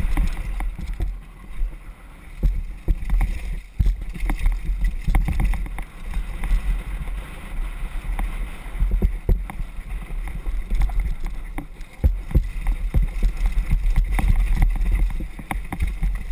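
Downhill mountain bike ridden fast over a rough dirt trail: a continuous low rumble of wind buffeting the microphone and tyres on dirt, broken by frequent knocks and rattles as the bike hits bumps and roots.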